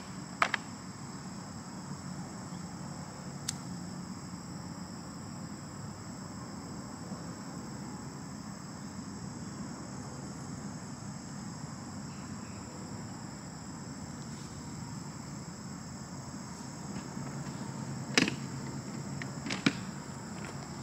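Steady chorus of evening insects such as crickets, an even high drone over low background hiss. Near the end come two sharp clicks as a lighter is struck to light the fire.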